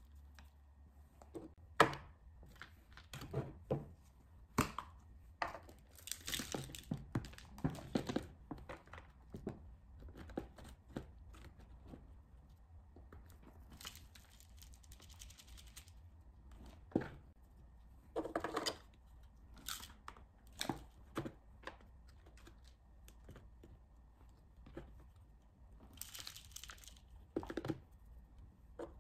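Potting soil being poured and worked into small square plastic pots by hand: irregular rustling and gritty scraping, with light knocks of plastic. The loudest is a sharp knock about two seconds in.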